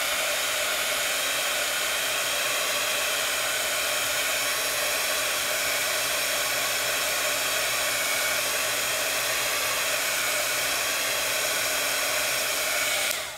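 Handheld craft heat tool running, blowing a steady rush of hot air to dry wet inkjet ink. It switches off just before the end.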